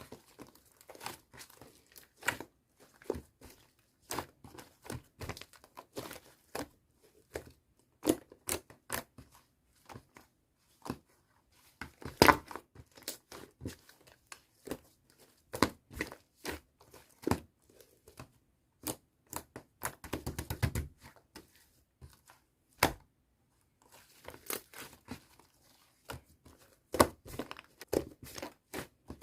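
White whipped-cream-style slime being squished and stretched by hand, giving irregular sticky clicks and pops, with a quick run of tiny crackles about twenty seconds in.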